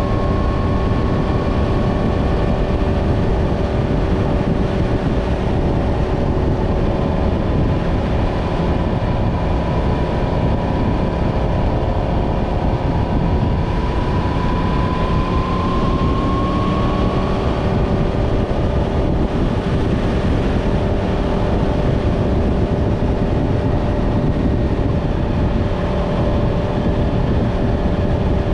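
Yamaha MT-10's crossplane inline-four engine running steadily at cruise, its note drifting only slightly, with one tone rising gently about halfway through. Heavy wind rush sits under the engine.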